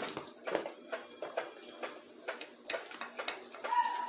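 Spoon clicking and tapping against a plate while stirring thickening slime, with irregular light knocks a couple of times a second.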